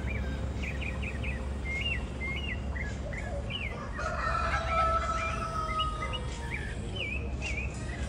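A rooster crows once for about two seconds, starting about four seconds in, over the quick, repeated chirping of small songbirds.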